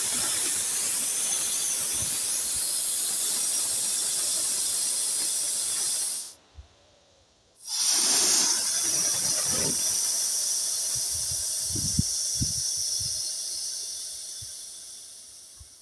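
Pressurised gas hissing out of a beer keg's A-type valve as it is held open with a rod to vent the keg. The hiss cuts off for about a second and a half partway through, comes back louder, then slowly fades as the pressure runs down, with a few soft knocks.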